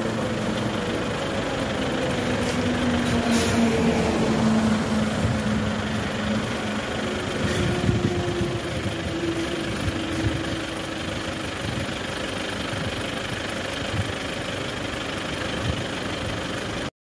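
Vehicle engine and road noise on a highway, with a truck passing close alongside at the start; its low engine drone slowly falls in pitch over the first several seconds. The sound cuts off suddenly near the end.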